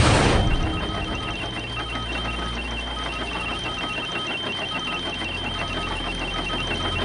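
Electronic beeping in short, rapid dashes at two pitches over a steady high tone and a low hum, a sound-design bed with a printer-like rhythm.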